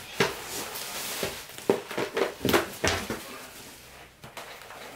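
Bubble wrap and plastic packaging rustling and crinkling as a wrapped battery is pulled out of a cardboard box, a quick run of sharp crackles over the first three seconds, then quieter handling.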